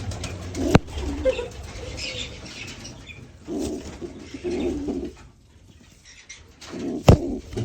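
Pigeons cooing, two low coos in the middle, with wing flapping and faint chirps; a sharp clap about a second in and another near the end.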